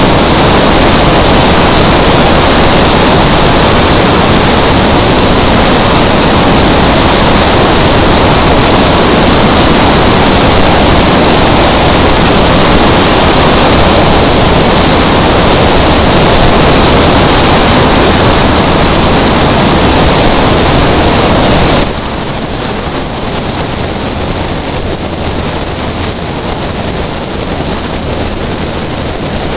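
Wind rushing over the microphone of a bonnet-mounted camera on a BMW drift car, with the car's engine running underneath, loud and overloaded. About 22 seconds in it drops suddenly to a much lower level.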